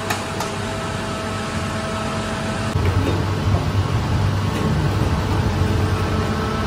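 Large electric dough mixer running steadily, its hook turning and folding a very soft bread dough in the steel bowl: a continuous machine hum with a few steady tones. About three seconds in it gets a little louder, with more low rumble.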